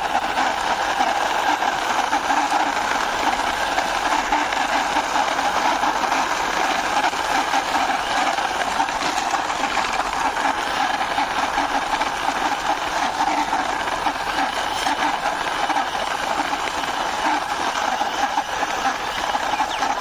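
Plastic toy car's wheels rolling and grinding over rough stone, a steady scraping noise with no break.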